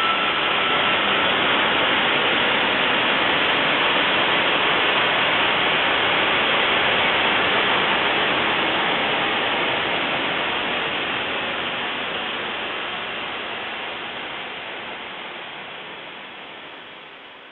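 Dial-up 56k modem handshake slowed about 700% with PaulStretch: a steady, smeared static hiss, with a faint held tone dying away about a second in. The hiss fades out gradually over the last several seconds.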